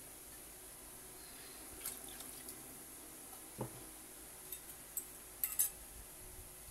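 A pot of thick peanut-sauce kare-kare stew simmering, with bubbles bursting on the surface in a few scattered soft plops. The most plops come together about five and a half seconds in.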